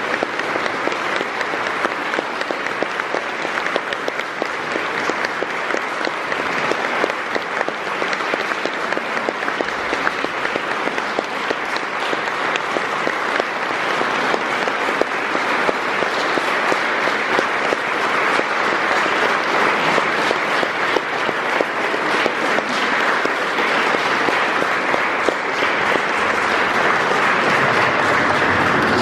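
Audience applauding steadily, growing a little louder in the second half.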